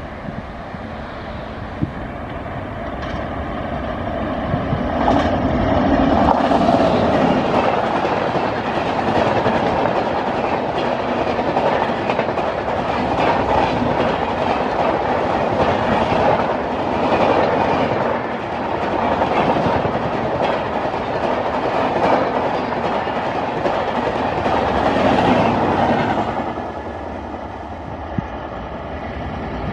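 Express train of LHB coaches hauled by an Indian Railways WAP-7 electric locomotive passing close by: a steady rumble of wheels on rail with clickety-clack over the joints. It swells in repeated surges as the coaches go past and fades near the end as the train moves away.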